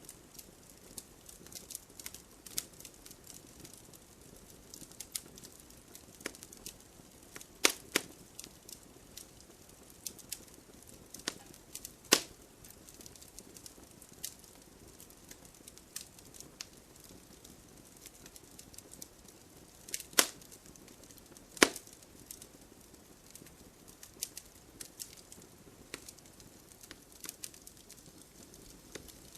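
Logs burning in a fireplace, crackling with frequent sharp pops and snaps over a soft steady hiss. A few snaps stand out louder: two close together about a quarter of the way in, one about two-fifths in, and two more about two-thirds through.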